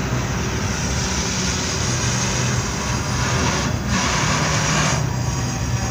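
Double-stack intermodal freight train rolling past at close range: a steady rumble and rattle of wheels on rails, with the low drone of Norfolk Southern diesel locomotives underneath. A brighter hiss swells between about three and a half and five seconds in.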